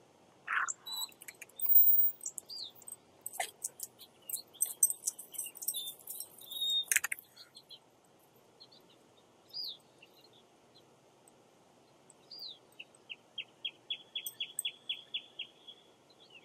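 Small birds chirping and calling, short high chirps and sweeping notes with a few sharp clicks, ending in a quick trill of about a dozen rapid repeated notes.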